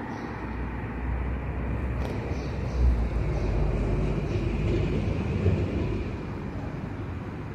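Low rumble of a road vehicle passing unseen, swelling from about a second in and fading again near the end.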